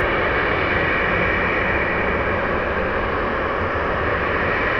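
Steady, loud jet engine noise from a Boeing 737-700 and its CFM56 turbofans.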